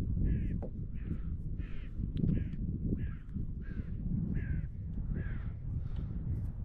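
A bird gives a long series of harsh calls, roughly one every two-thirds of a second, fading near the end, over a steady low rumble.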